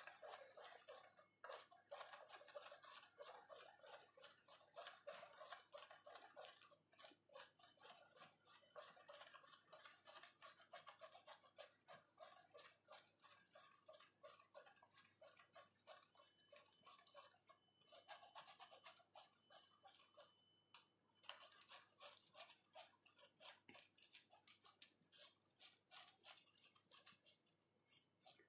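Faint, dense scratching as a whisk stirs lumpy icing sugar against a stainless-steel mesh sieve, working it through, with a few short pauses.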